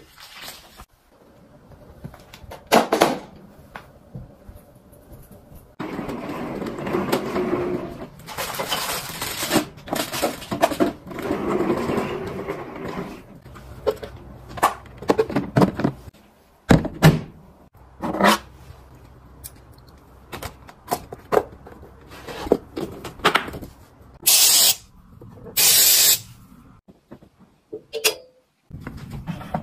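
Household items being handled: a run of plastic clicks and knocks with stretches of rustling, and two short hissing bursts a few seconds before the end.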